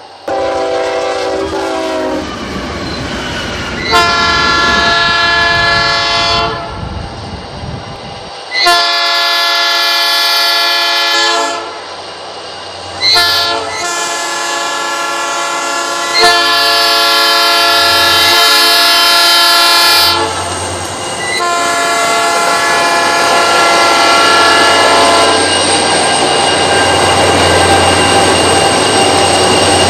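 Air horn of a GM GT22 diesel locomotive sounding a series of long blasts with one short blast among them, over the low rumble of the approaching engine. From about 25 seconds in the horn stops and the locomotives pass close by with a loud, steady rushing and rattling of engine and wheels.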